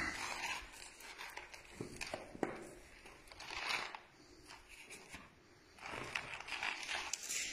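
Faint crunching and rustling in several short swells, with a few sharp clicks: footsteps and handling on a floor strewn with grit, debris and loose paper.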